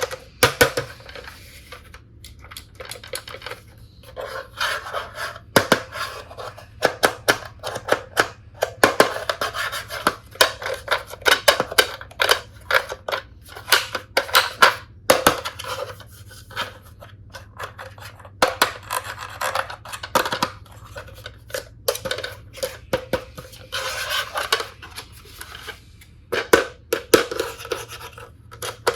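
Plastic toy tools and their packaging being handled by hand: scratchy rustling and rubbing, with frequent sharp plastic clicks and taps.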